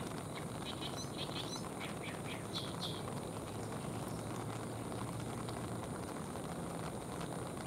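Short, high bird chirps, several in quick succession during the first three seconds, over a steady outdoor hiss.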